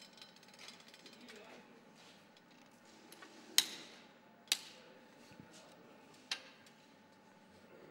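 Three sharp metallic clicks from a torque wrench with a 10 mm Allen bit as the self-extracting crank bolt of an FSA BB386EVO crankset is tightened to 38–41 Nm: two under a second apart, then a third nearly two seconds later, with faint handling noise between.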